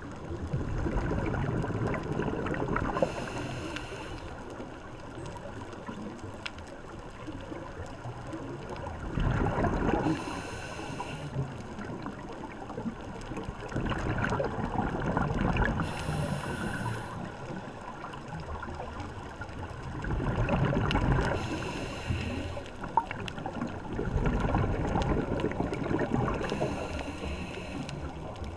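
Scuba diver's regulator breathing underwater: surges of bubbling exhalation about every five to six seconds, each followed by a brief hiss of inhaled air from the regulator.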